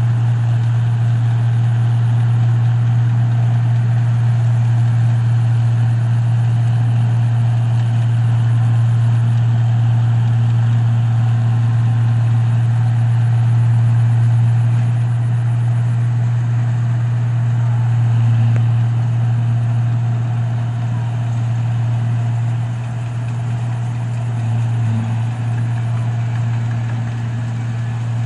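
New Holland combine harvester running steadily under load while harvesting rice: a loud, even low engine hum with machinery noise over it, easing a little about three-quarters of the way through.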